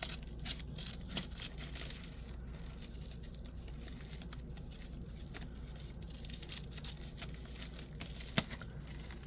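A packaging bag crinkling and rustling as it is handled and opened, with one sharp click about eight seconds in.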